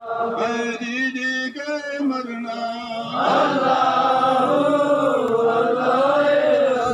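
A man's voice chanting in a drawn-out, melodic style, growing louder and fuller about three seconds in.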